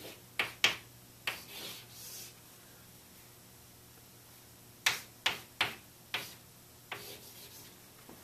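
Chalk writing on a blackboard: sharp chalk taps and a short scratchy stroke in the first two seconds, a quiet pause, then a quick run of about five taps between five and seven seconds in.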